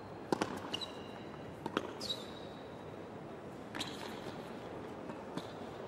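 Tennis rally on a hard court: several sharp hits of racquet on ball and ball bouncing, irregularly spaced. Short high shoe squeaks on the court come about one and two seconds in.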